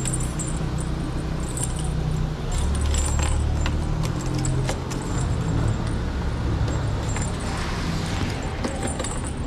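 Motorcycle engine running low and steady, with light metallic jingling and clicks like keys.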